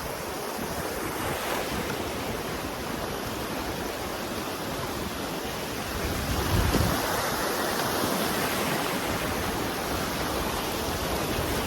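Sea waves washing in with wind buffeting the microphone, growing louder about six seconds in.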